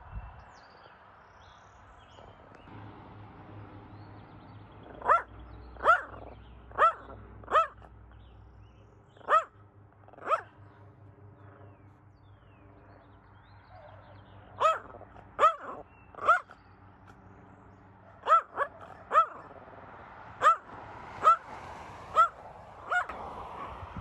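A dog barking in three bouts of short barks, about one a second, over the faint steady drone of a Brood X periodical cicada chorus.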